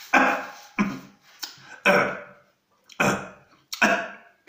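A man coughing and clearing his throat in a series of about six short coughs, muffled into a tissue: a swallow of yogurt drink has gone down the wrong way.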